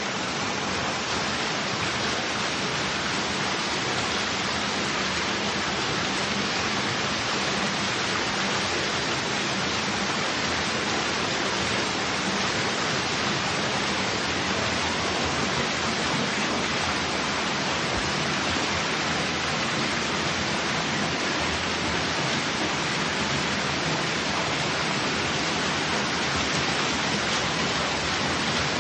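Water falling steadily from a cascade fountain into its pool, an even, unbroken splashing rush.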